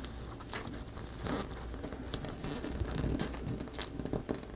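Handling noise of small wooden parts being shifted and pressed together while glued: irregular light clicks, taps and scrapes.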